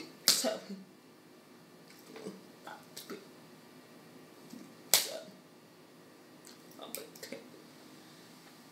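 Two loud, sharp clicks, one just after the start and one about five seconds in, with a few fainter clicks and short soft sounds between them.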